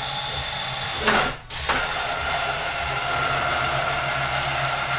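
ATV-mounted electric winch running, paying out cable to lower the front of the quad. It whines steadily, with a short burst and a brief stop about a second in before it runs on evenly.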